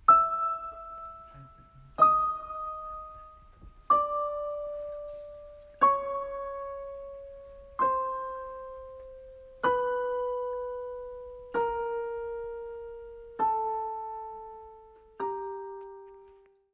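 Piano music: a slow descending line played in octaves, one note struck about every two seconds and left to ring out, nine in all, the later ones filled out with added chord tones.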